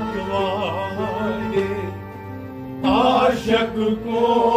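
A man singing a Kashmiri devotional kalam in wavering, ornamented phrases over the steady drone of a harmonium. One phrase dies away about two seconds in and a louder one starts just before the three-second mark.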